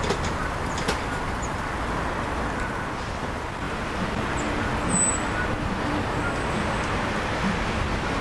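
Steam-hauled freight train pulling away on the rails, its wagons and GWR brake van rolling off in a steady low rumble, with a single wheel click about a second in.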